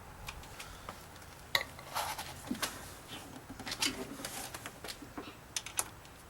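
Hands handling and feeding a car's new hood release cable into place: scattered light clicks, taps and rustles.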